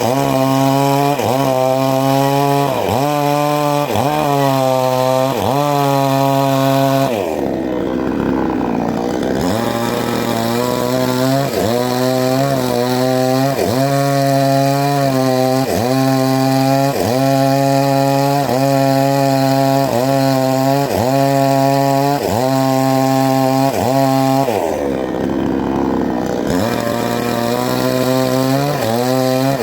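Total two-stroke chainsaw with a 24-inch bar running at high revs while cutting wood, its pitch dipping under load in a steady rhythm a little slower than once a second. Twice, about a quarter of the way in and again near the end, the engine drops to low revs for a couple of seconds, then revs back up.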